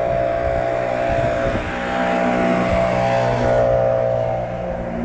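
Nireeka Revenant e-bike's 1000 W electric motor whining steadily under way, with wind rushing over the microphone that eases off about three and a half seconds in.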